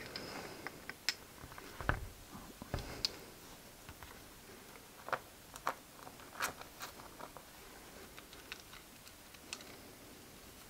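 Small metal engine parts being handled and fitted by hand: scattered light clicks and taps of connecting rods and small screws against a machined aluminium engine block, thinning out in the second half.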